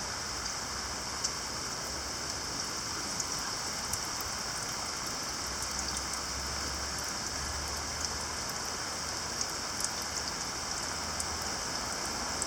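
Steady rain falling, a shower easing off after a brief downpour, with scattered single drops ticking sharply.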